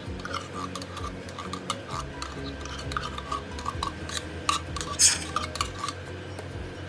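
Cream and condensed milk being mixed in a bowl: a utensil repeatedly clinks and scrapes against the bowl, with a louder clatter about five seconds in.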